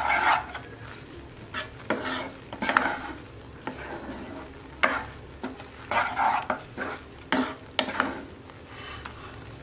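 Wooden spoon stirring a thick salted-egg-yolk sauce in a nonstick wok, with irregular scrapes and light taps against the pan.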